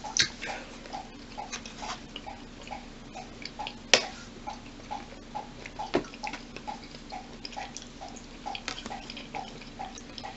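Quiet table sounds: a spoon clinking against a drinking glass, with two sharp clinks about four and six seconds in. Under them runs a low steady hum with a faint regular pulse about three to four times a second.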